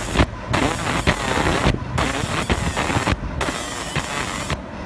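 Fiber laser marker engraving a metal ring turning in its rotary chuck: a loud spark-throwing hiss and crackle of the beam on the metal, broken by short pauses about every second and a half between passes, over a low machine hum.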